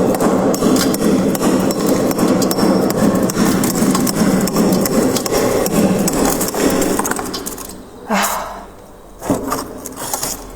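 Freezer frost being scraped off with a scraper: a dense run of rapid, scratchy strokes that dies away about seven or eight seconds in. A couple of brief, softer sounds follow near the end.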